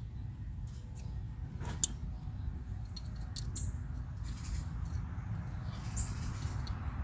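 Small metallic clicks and scrapes of an Allen key working the set screws in a car amplifier's wiring terminal, over a steady low rumble; the sharpest click comes a little under two seconds in.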